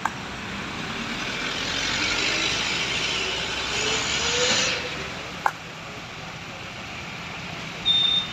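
A road vehicle driving past with its engine note rising, the road noise swelling and then dropping off about four and a half seconds in. A sharp click follows, then a short high-pitched beep near the end.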